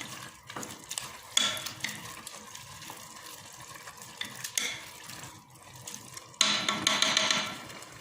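A spoon stirring and clinking in a pot of meat and spices frying in oil, with tomato paste being stirred in. A louder sizzle lasts about a second, some six seconds in.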